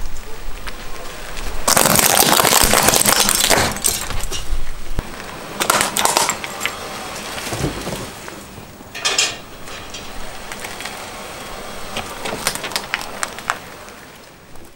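Hard plastic cracking and crunching under a car tyre: a dense burst of crackling and snapping lasting about two seconds, followed by scattered single cracks and snaps.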